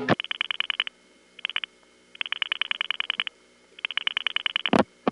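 Rotary-dial pulse clicks heard down a telephone line: four rapid trains of sharp clicks at about ten a second, with short pauses between them as each digit is dialled, then one louder click near the end.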